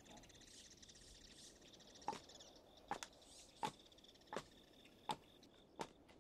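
Faint footsteps: six evenly spaced steps, about one every 0.7 s, starting about two seconds in, over a faint high buzzing hiss.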